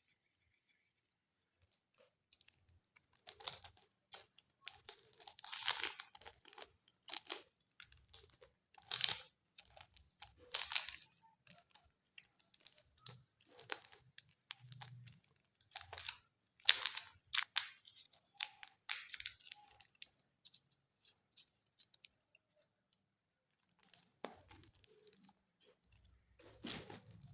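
Packaging being torn open and crinkled by hand in a run of short, irregular rustling bursts, with a pause of a few seconds before it starts again near the end.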